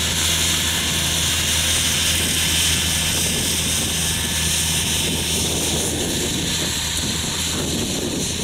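New Holland T7040 tractor's diesel engine running steadily under load as it pulls a Horsch Pronto 6DC seed drill, a constant low drone with an even hiss over it.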